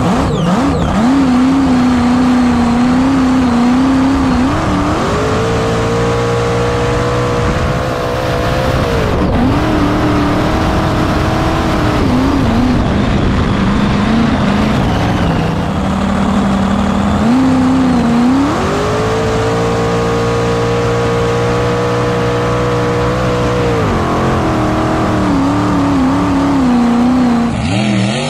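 Jet boat engine heard from on board, running loud under the driver's throttle. It climbs to a higher pitch about five seconds in and eases back a few seconds later, then climbs and eases back again in the second half.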